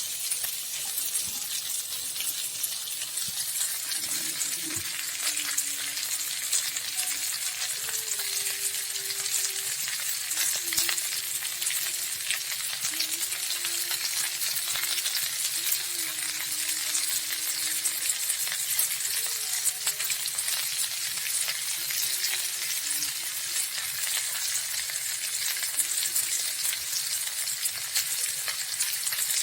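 Tilapia grilling in oil and sweet soy sauce on a nonstick Teflon pan, sizzling with steady fine crackling.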